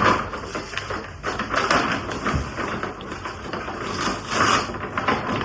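Plastic grocery packaging and bags crinkling and rustling as items are handled and unpacked, in quick irregular crackles, loudest at the start and again about four seconds in.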